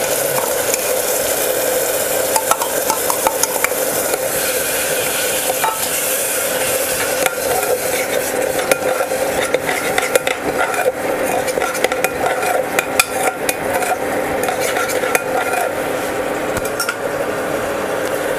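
Tomato paste sizzling in hot oil and spices in a pressure cooker pan, while a steel spatula stirs it with repeated scraping and clinking against the metal pot.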